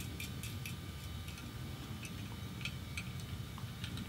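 Light, irregular metallic clicks and ticks of a small nut, lock washer and washer being handled and threaded finger-tight onto an M4 screw on a fuel sending unit bracket, over a steady low room hum.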